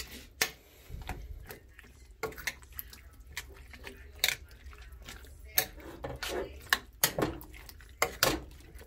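A spoon stirring chopped vegetables in a stainless steel pot, giving irregular clinks and scrapes against the pot's sides.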